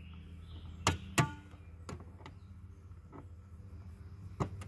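Pliers working the spring off a Tesla Model 3 frunk latch: a few sharp clicks and snaps, the two loudest about a second in, then lighter ticks.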